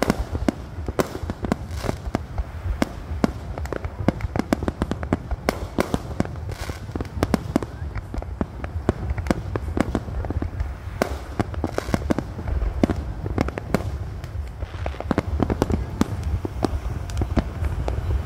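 Aerial fireworks display: a dense, continuous barrage of sharp bangs from shells bursting, several a second, over a steady low rumble.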